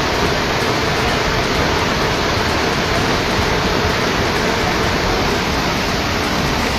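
Rushing floodwater of a swollen river, a loud, steady roar that does not let up.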